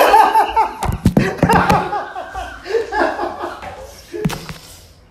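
A person laughing in short repeated bursts, with several sharp knocks and thumps in among the laughter and one more knock near the end.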